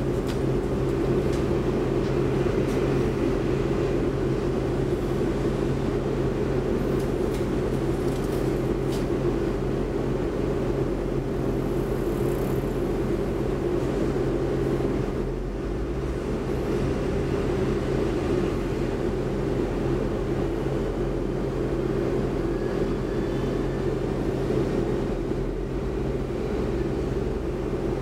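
Konstal 13N tram standing at a stop with its doors open, its onboard electrical equipment giving a steady hum with a low tone and a higher one.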